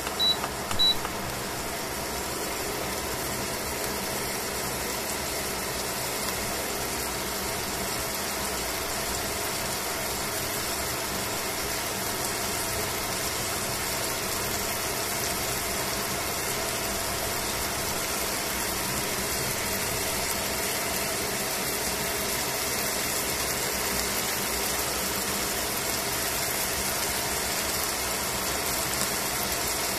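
Chicken thigh frying in a stainless steel pan: a steady sizzle of bubbling fat, over a steady hum. Two short high beeps sound in the first second.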